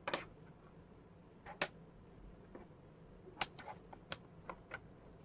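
Wooden jigsaw puzzle pieces clicking and tapping against each other and the tabletop as they are handled and fitted: about eight short, sharp clicks at irregular intervals, most of them bunched together in the second half.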